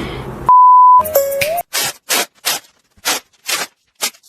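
A loud steady beep, one pure tone about half a second long, about half a second in. It is followed by a string of short, sharp noisy bursts, roughly two a second.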